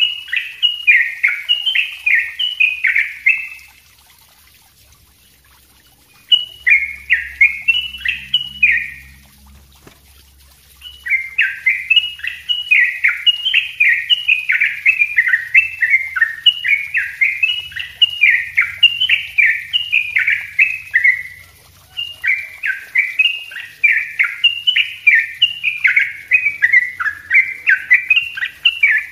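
Yellow-vented bulbul (trucukan) singing its rapid, densely packed 'ropel' song: quick, tumbling notes in four long runs with short pauses between, the longest lasting about ten seconds.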